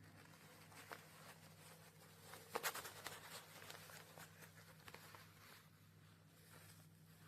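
Faint rustling and light scratchy clicks, loudest in a short cluster about two and a half seconds in, over a low steady electrical hum.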